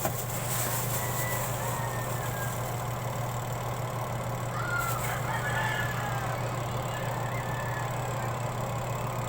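Spin-dryer motor of a Hanabishi twin-tub washing machine running with a steady low hum, the spin basket turning again after repair.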